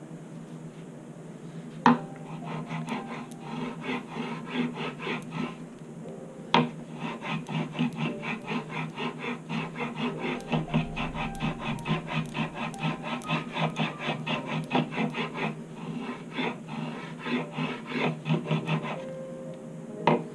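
A hand tool is scraped back and forth in quick, even strokes, about three a second, along the rosewood fingerboard of a guitar neck held in a vise. A sharp knock comes about 2 s in and another about 6.5 s in, as the tool is set on the wood, with a short pause between the two runs of strokes.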